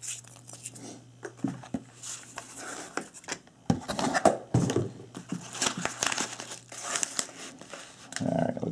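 Cardboard and paper packaging being handled: irregular rustling, crinkling and small knocks, busier from about halfway, and near the end a kraft padded mailer crinkling in the hands.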